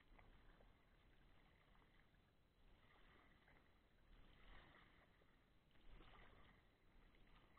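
Faint kayak paddle strokes: soft splashes of the blade dipping into calm river water, roughly every second and a half.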